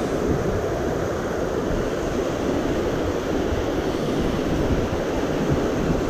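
Steady rushing of a mountain stream's flowing water, an even noise with no breaks.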